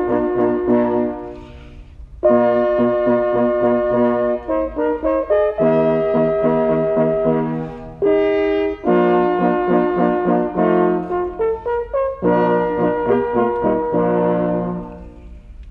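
Four French horns playing in harmony, a multitrack quartet: sustained chords in phrases with short pauses, ending on a chord that dies away near the end.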